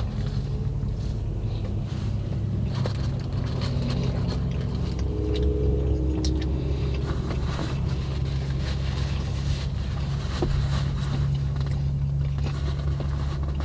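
A parked car's engine idling, a steady low hum heard from inside the cabin, with small clicks and rustles of someone eating a sandwich.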